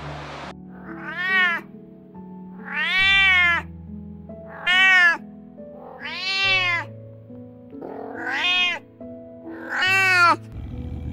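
Domestic cat meowing six times, each meow rising and then falling in pitch, over soft background music.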